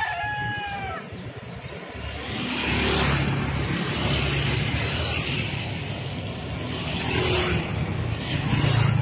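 A rooster crows, its call trailing off about a second in. Then a steady motor-vehicle engine rumble with a hiss takes over, swelling around three seconds in and again near the end.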